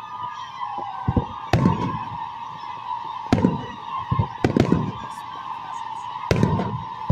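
Aerial fireworks shells bursting: several sharp bangs, some in quick pairs, each trailing a low rumbling echo. A steady, wavering high tone runs underneath.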